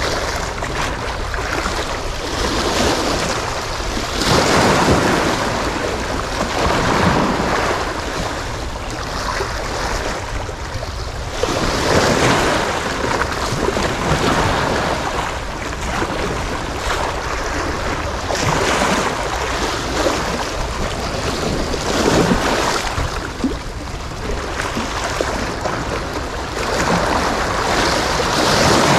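Sea waves washing and wind buffeting the microphone, a steady low rumble with noisy swells every few seconds.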